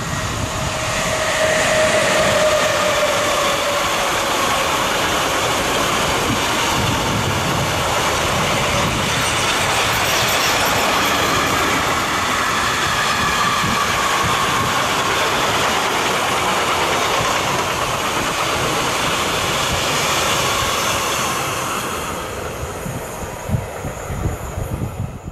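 A Siemens Vectron class 193 electric locomotive passes at the head of a mixed freight train, with a tone that drops slightly in pitch in the first few seconds. Then a long string of freight wagons rolls by with a steady rumble and clatter of wheels on rail. The sound fades near the end, with a few short knocks.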